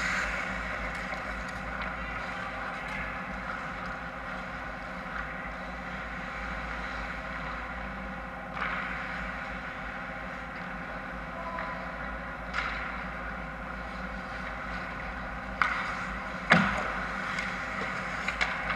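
Indoor ice rink ambience: a steady hum, broken by a few sharp knocks of sticks or pucks on the ice and boards, the loudest about sixteen and a half seconds in.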